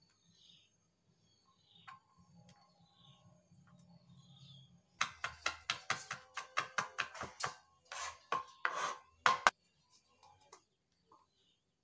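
Steel cleaver chopping red chillies on a plastic cutting board: a quick run of chops at about five a second starting about five seconds in, then a few longer strokes and two sharp knocks.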